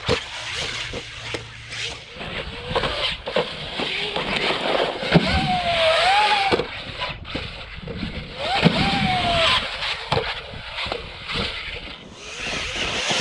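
Traxxas Maxx RC monster truck running on 6S: its brushless motor whines up and down in pitch twice as the throttle is worked, over the rush of tyres on grass and dirt, with repeated knocks and thumps from jumps, tumbles and landings.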